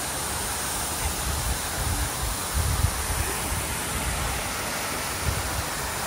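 Steady rushing of a small waterfall pouring into a rock pool, with a few low rumbles on the microphone about halfway through.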